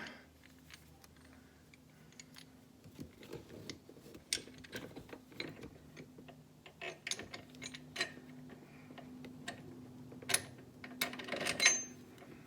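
Socket ratchet clicking in short, irregular runs with metal tool clinks as 8 mm bolts are driven in, the sharpest clicks near the end.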